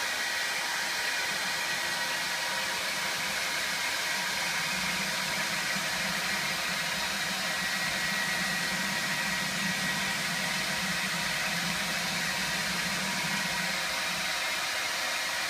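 Nanoe hair dryer blowing steadily: a continuous airy hiss with faint steady tones from the motor.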